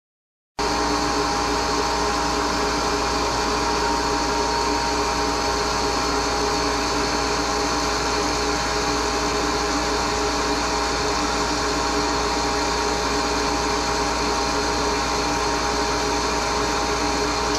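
Wet ring dental vacuum pump running steadily, a constant hum with several steady tones, cutting in abruptly about half a second in. Its air inlet is blocked off, so the weak pump is starved of cooling air and its housing is heating up.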